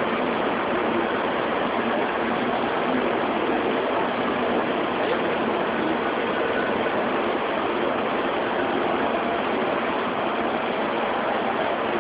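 Steady, even din of a busy indoor exhibition hall: indistinct crowd noise blurred into a constant rush, with no single sound standing out.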